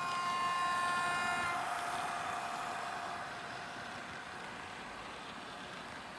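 Sound-decoder horn of a model 2D2 electric locomotive, played through the model's small speaker: one steady horn note for about a second and a half, followed by a hiss that fades out over the next couple of seconds.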